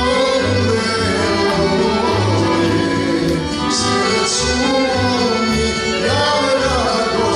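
A sevdalinka performed live: a male voice singing a slow, wavering melody over a small band of accordion, clarinet and guitars with a pulsing bass line.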